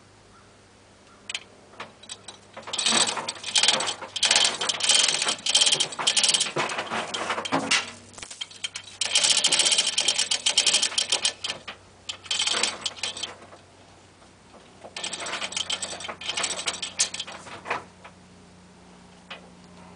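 Rigging chain rattling, with rapid metallic clicking like a hoist ratcheting, in several bursts a few seconds long. The chain is being repositioned to give more slack.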